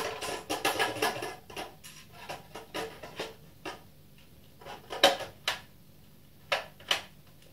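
Hard plastic clicks, taps and rattles as the base of a BenQ XL2420T monitor is fitted onto its stand. A busy stretch of handling noise opens it, then scattered taps follow, with one sharp knock about five seconds in and two more near the end.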